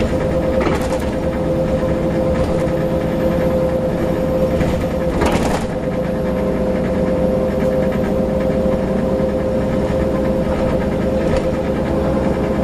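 Inside the cabin of a Volvo B7LA Wright StreetCar articulated bus under way: diesel engine and road noise with a steady high whine. Two short bursts of hiss come about a second in and again around five seconds in.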